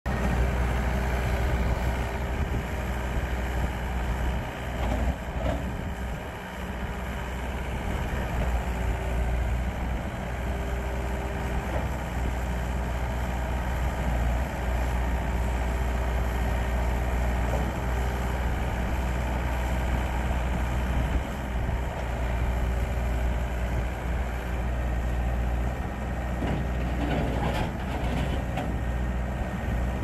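John Deere 320 skid steer loader's turbo-diesel engine running steadily while the machine drives, turns and raises its bucket. A higher steady tone over the engine drops out and returns every few seconds.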